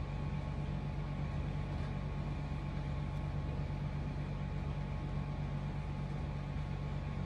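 Steady low hum with a thin higher tone and an even hiss, unchanging throughout; no separate sounds stand out.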